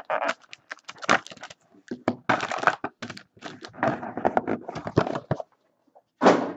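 Hands opening a cardboard trading-card box: a string of taps, scrapes and rustles as the lid and inner tray come off and the packs are taken out.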